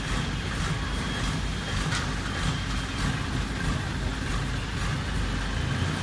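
Crawler-mounted pile driver's engine running steadily, with a few faint clicks.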